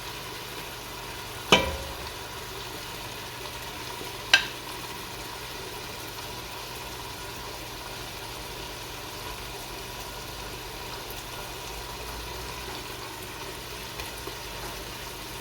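Mutton and spices frying steadily in hot ghee, a continuous sizzle as the masala is browned. Two sharp knocks cut in, one about a second and a half in and another about three seconds later.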